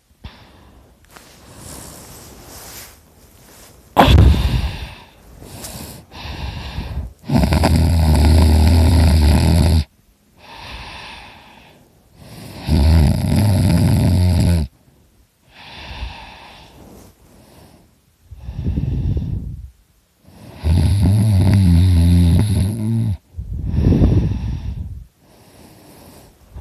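A man snoring very loud with his mouth open and his uvula moving. Three long, loud snores of two to three seconds each, with shorter, quieter breaths between them.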